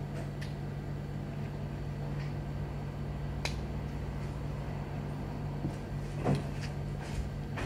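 Small plastic clicks and knocks from handling a toy wrist-mounted disc launcher, a few scattered ones with the loudest about six seconds in, over a steady low hum.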